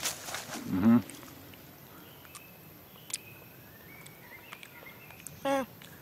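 A boy's voice making two short sounds without words, about a second in and again near the end. Between them is a quiet stretch with a few faint clicks.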